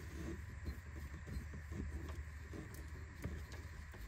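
Socket wrench with an 8mm socket tightening a hose clamp on a steering rack boot: faint, irregular clicks and small handling noises over a steady low hum.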